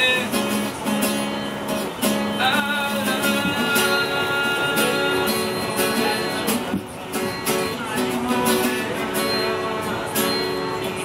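A man strumming an acoustic guitar and singing along.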